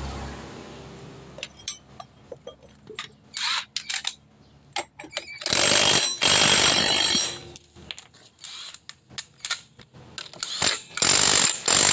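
Workshop tool work: scattered clicks and clatter of tools and parts, with two loud bursts from an air tool, the first about two seconds long, the second about a second long near the end.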